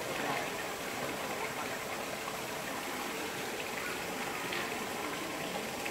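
Steady rush of running water, with faint voices in the background.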